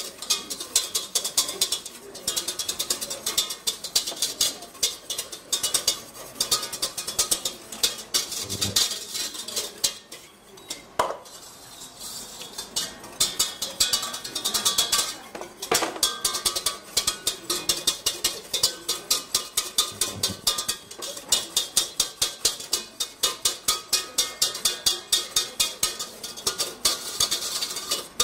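Whisk beating inside a stainless-steel saucepan, a quick clicking rhythm of about four or five strokes a second, with a short pause about ten seconds in and a couple of ringing clanks against the pan. The warm emulsion sauce is being whisked as it thickens.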